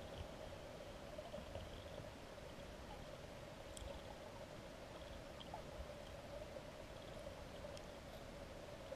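Faint, steady underwater ambience of flowing river water, muffled through a GoPro Hero 3+ waterproof housing, with a few faint ticks.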